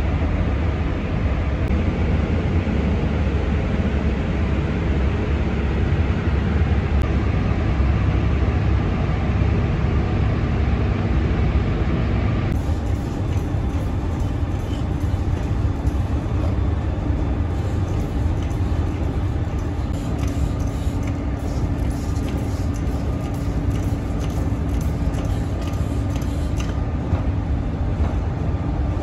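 Steady low rumble of paint-booth ventilation fans, even and unbroken.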